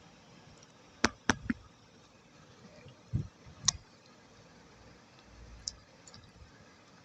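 Close-miked clicks from wet multani mitti clay paste: three sharp clicks about a second in, a soft low thud around three seconds, then another sharp click, with a few faint ticks after.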